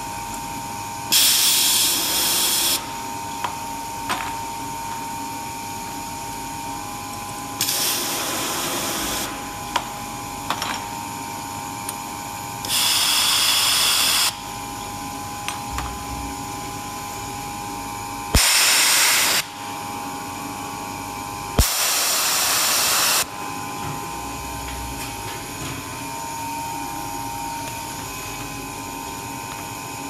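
YX-AW60 ionized-air bottle washer blowing filtered air into glass perfume bottles set upside down on its nozzles: five loud bursts of rushing air, each about a second to a second and a half long, over the machine's steady hum with a faint whine. Light clicks between the bursts as bottles are set on the holders.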